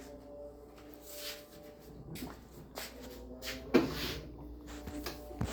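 Handling noise: a run of short rustles and knocks over a faint steady hum, with one sharp knock a little past halfway.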